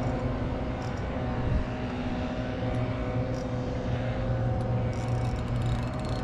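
A steady engine hum, running evenly at one pitch, with a few faint ticks over it.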